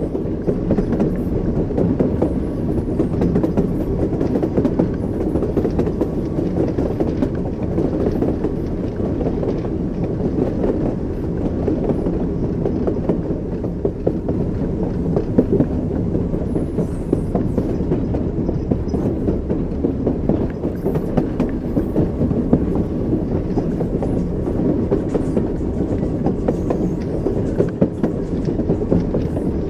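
Train wheels running on the rails: a steady rumble with the clatter of the wheels over the track.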